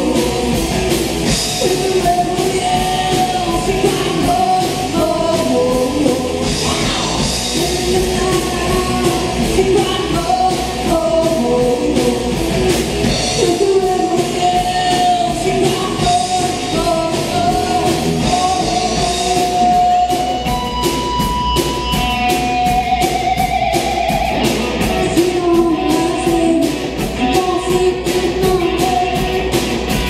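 Live rock band playing an 80s rock song, with a singer, electric guitar and drums in a steady beat.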